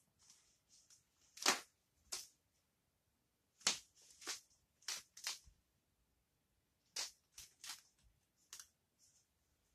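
Woven cotton boxer shorts rustling and snapping as they are handled at the waistband and moved about: about ten sharp snaps in irregular groups, with soft rustling between.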